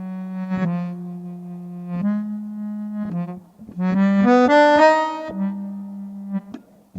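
Hammond-Suzuki H24B bass melodica, played through a headphone amp's reverb. It holds low reedy notes, then about four seconds in plays a quick rising run of notes, the loudest part, which settles on a held note.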